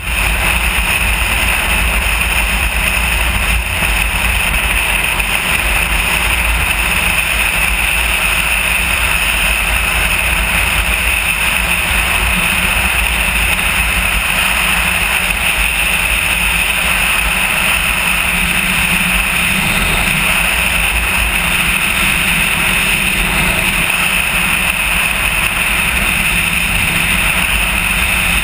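Motorcycle cruising at steady highway speed, heard through a camera mounted on the bike: a constant rush of wind and road noise with a deep rumble underneath, unchanging throughout.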